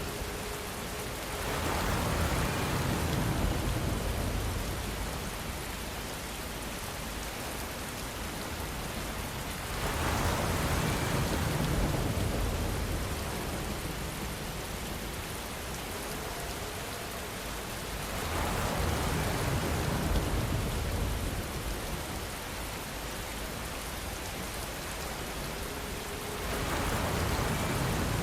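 Steady rainfall, swelling louder about every eight seconds with a deeper rumble in each swell.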